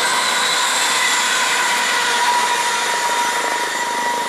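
ScotRail Class 380 electric multiple unit passing through the station non-stop at speed: a loud, steady rush of wheels on rail and air, with a steady high whine running through it.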